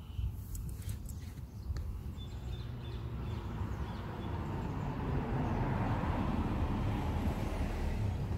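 Outdoor background noise: a steady low rumble with a few faint clicks in the first couple of seconds, then a broad wash of noise that slowly builds and holds.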